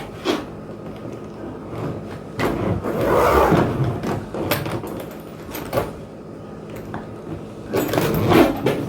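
Trolley suitcase being handled and zipped shut: a longer rasping stretch a few seconds in, with scattered knocks and clicks of the case and its fittings.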